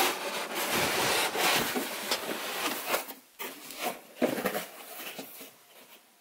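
Cardboard rubbing and scraping as a snug inner box is slid up out of its outer carton, for about three seconds. Then a few short knocks and rustles of the packaging being handled, fading toward the end.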